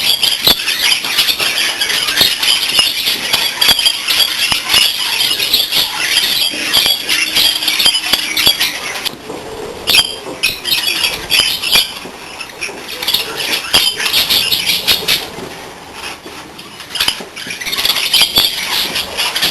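A flock of budgerigars chattering and chirping excitedly in an aviary, a dense, loud warbling din with scattered clicks, easing off briefly twice around the middle before building up again.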